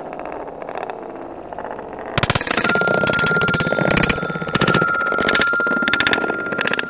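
Glass marbles rolling along a wooden Haba marble run track. About two seconds in they start dropping onto the run's metal chime bars, giving a quick patter of clinks over bright ringing tones that hang on.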